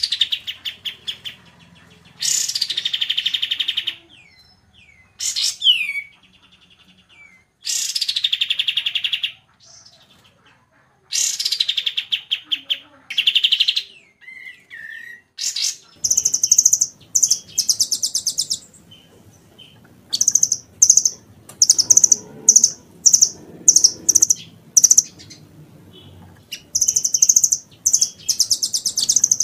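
Recorded songbird calls of the kind used as masteran, tutoring song for captive birds: first four long, buzzy trills of about a second and a half each, with short gliding whistles between them. About halfway through a different bird takes over with short, high-pitched chips repeated about twice a second in bursts.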